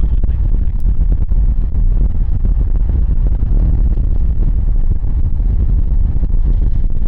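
Loud, steady low rumble of strong wind buffeting the microphone.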